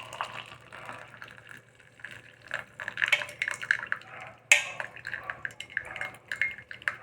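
Hot herbal decoction being poured from the pan through a strainer into a cup: liquid pouring and dripping, with small clinks of metal utensils and one sharp clink about four and a half seconds in.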